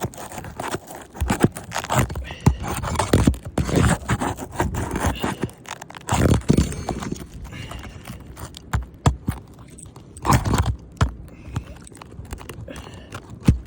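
Fasteners being worked out from under a roof shingle: irregular scraping, cracking and sharp knocks against the shingle.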